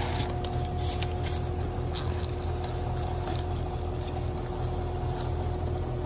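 Carrier heat pump outdoor unit running with a steady electrical hum and low drone, with a few light clicks over it.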